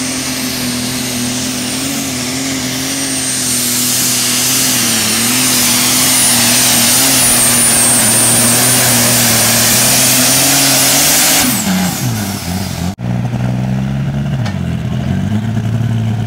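Heavy super stock pulling tractor's engine running hard under full load as it drags the sled, with a thin high whine above the engine note and the noise building over the run. About twelve seconds in the engine is throttled back and its pitch drops to a lower running note as the pull ends.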